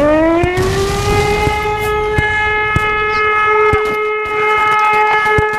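Air-raid siren finishing its rise in pitch within the first second, then holding one steady tone, with scattered sharp clicks.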